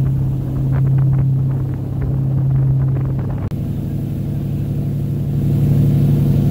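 A ferry's engine drones steadily as the boat moves through the water, a low hum with a few faint splashes from the wake. The drone shifts abruptly at an edit about halfway through and carries on much the same.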